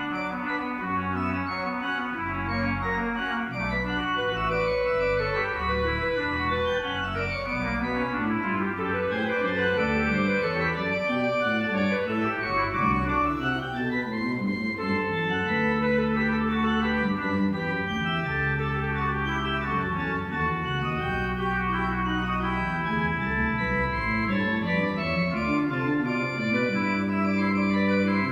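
Organ playing slow sustained chords in many parts, with running passages of notes sweeping up and down through the middle of the piece.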